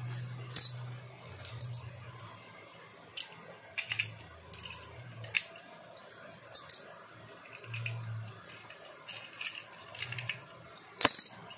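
Thin clear plastic bag crinkling in irregular sharp crackles as hands grip and fold it, the loudest crackle near the end.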